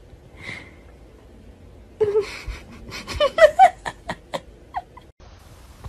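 A person laughing in short, breathy bursts, starting about two seconds in, with a few sharp clicks mixed in.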